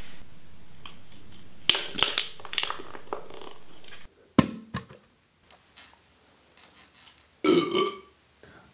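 Aluminium beer cans being handled, with a crackling crunch about two seconds in and a sharp knock a little after four seconds, over a steady hum that cuts off midway. A short, low, throaty vocal sound comes near the end.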